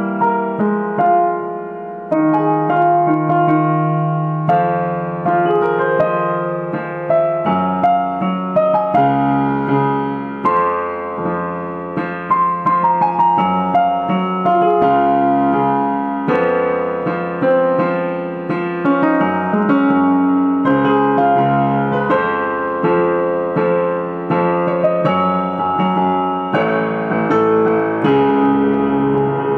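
Digital stage piano on its grand piano sound, played with both hands: chords in the right hand over low bass notes in the left that change every second or two.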